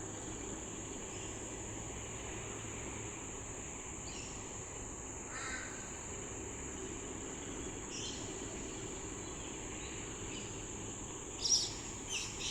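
Insects trilling steadily and high-pitched in the background, with a bird calling a few times, loudest in a burst of harsh caws near the end.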